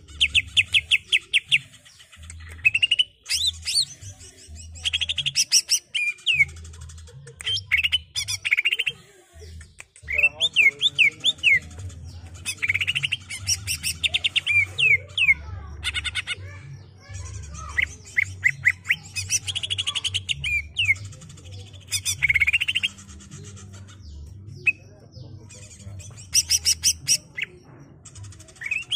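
Male greater green leafbird (cucak ijo) singing its rolling song: phrases of quick up-and-down whistled notes and fast chattering trills, repeated every second or two with short gaps.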